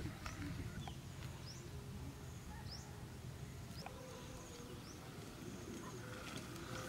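Faint outdoor ambience: a steady low rumble with a few short, high bird chirps scattered through it.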